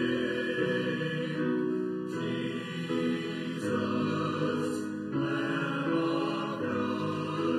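Small men's choir singing slow, held chords, accompanied by a grand piano.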